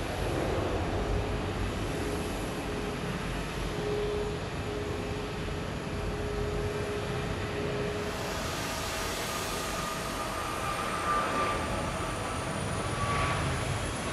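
Jet airliner engines at takeoff thrust: a steady drone with a held tone from the Airbus A320 climbing out, then about eight seconds in the brighter sound of a Boeing 737 MAX 8's CFM LEAP-1B engines on the takeoff roll, with a high whine rising slowly.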